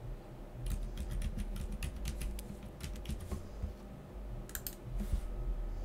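Typing on a computer keyboard: a quick run of about a dozen keystrokes, then two more a little later, entering a phone number.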